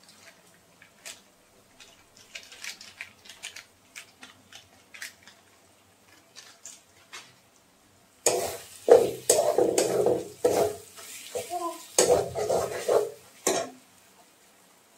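Steel spatula scraping and clanking against a steel wok while spice powder is stirred into fried onions. Faint light ticks for the first several seconds, then loud, busy scraping and clatter from about eight seconds in until shortly before the end.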